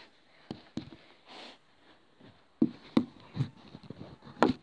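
Phone handling noise: about half a dozen scattered knocks and thumps as the phone is moved against surfaces, the loudest near the end, with a brief soft rustle about a second and a half in.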